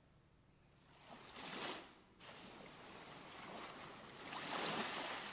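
Recorded sea waves washing in: a short swell of surf about a second in, then a longer, louder one building toward the end.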